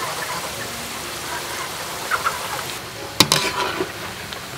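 Breadfruit slices deep-frying in oil in a wok, sizzling steadily. A wire skimmer clinks and scrapes against the wok a few times a little past three seconds in.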